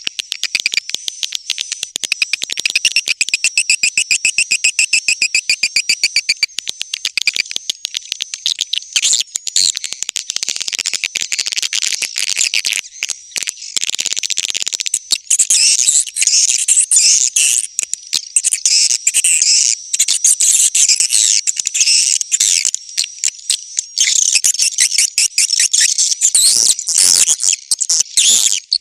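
Swiftlets (walet) giving their courtship twitter: a fast, continuous train of high clicking chirps that grows busier and louder about halfway through.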